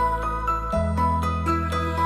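Calm instrumental background music of slow, held notes, with the bass note changing about a second in.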